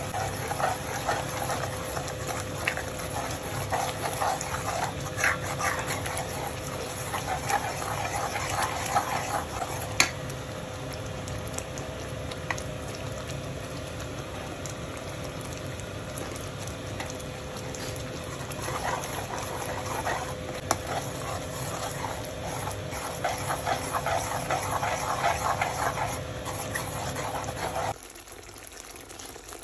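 A wooden spoon and a whisk stirring and scraping thick, simmering saag in a metal pot, in long stretches of scraping and bubbling over a steady hum. The sound drops to a quieter level near the end.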